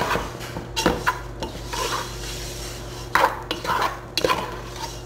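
A spoon scraping and knocking irregularly against a stainless steel stockpot while flour-coated beef cubes are stirred, with a light sizzle from the meat starting to brown in hot oil.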